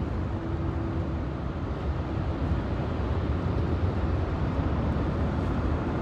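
Steady road and engine noise inside a moving car's cabin while cruising on a highway: a low, even rumble with a hiss of tyre and wind noise above it.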